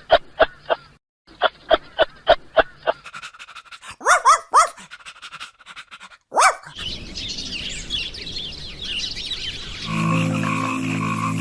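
Dog barking in quick runs of short, sharp barks, about four a second, then a few rising-and-falling yelps. After that comes a stretch of high chirping, and music begins near the end.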